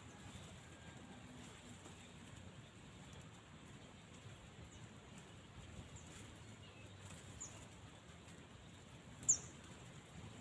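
Small birds giving a few short, high chirps, the loudest one near the end, over a faint low outdoor hum.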